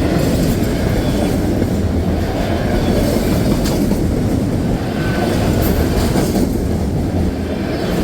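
A train passing close by: a loud, steady rumble of wheels on rail, with a few faint clicks.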